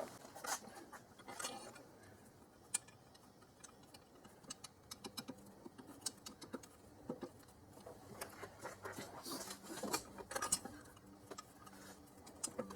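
Faint, irregular small clicks and taps of intake-manifold bolts being handled and set in place by hand, metal on metal.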